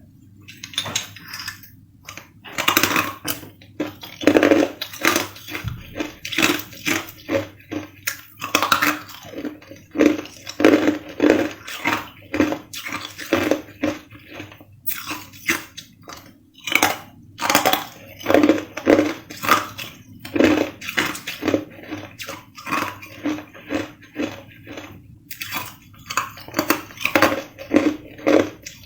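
A person biting and chewing hard clear ice close to the microphone: a long run of sharp crunches, roughly two a second, with a few short pauses.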